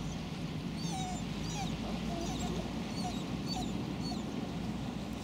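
Birds chirping in the background: many short, quick calls scattered throughout, over a steady low rumble.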